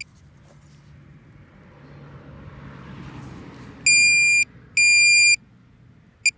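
Metal detector giving two strong, high-pitched beeps of about half a second each, under a second apart, as the coil sweeps over a buried target that reads a clear 80 on the display, followed by a short chirp near the end.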